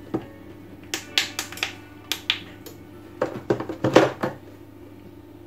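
Sharp plastic clicks and light knocks from pressing a blender's keypad buttons and handling its jar on the base, in two clusters: one about a second in and another after three seconds. A faint steady hum of background music lies underneath.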